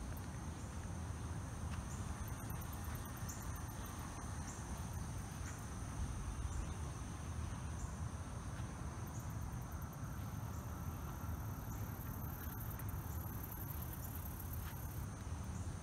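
Insects chirring in steady high-pitched trills, with a second, pulsing buzz joining from about ten to fifteen seconds in, over a low steady rumble.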